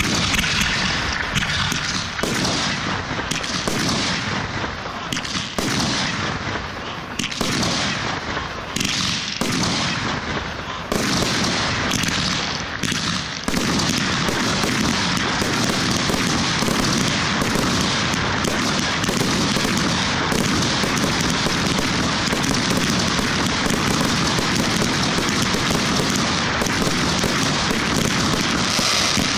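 Aerial fireworks bursting in a rapid series of separate bangs, then from about halfway through a dense, unbroken barrage of bangs and crackle.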